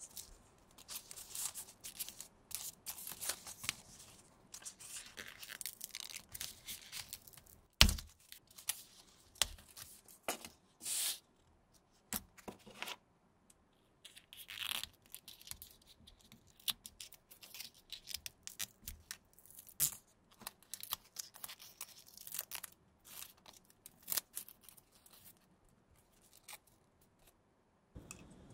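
Close-up handling of small petal cut-outs as fingers fold, press and roll them into a flower bud: scattered crinkling and rustling with soft clicks. One sharp click about eight seconds in is the loudest sound.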